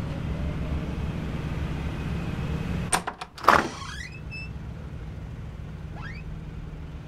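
Film sound design: a low, steady rumbling drone, broken about three seconds in by a cluster of sharp hits followed by a short rising sweep. A fainter rising sweep comes about six seconds in over the drone.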